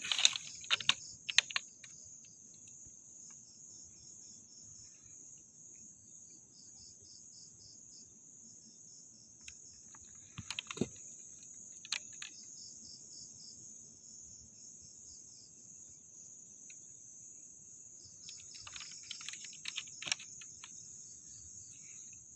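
Crickets and other night insects chirring in a steady high band throughout. Scattered sharp clicks and knocks come at the start, again about halfway through, and in a cluster near the end.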